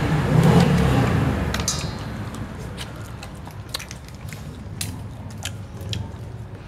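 Eating sounds: scattered sharp cracks and clicks of crab shell being broken apart by hand and bitten, after a low rumble in the first second or so.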